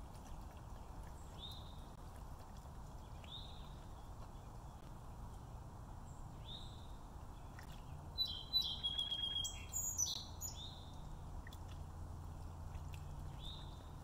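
A bird calling: a short high chirp repeated about every second and a half, with a louder burst of rapid, busier twittering just past the middle.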